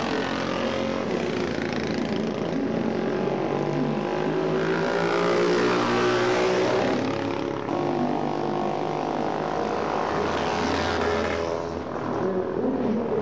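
Vintage DKW two-stroke racing motorcycle engines running at speed, several overlapping and rising and falling in pitch. It is loudest about halfway through, as one machine passes.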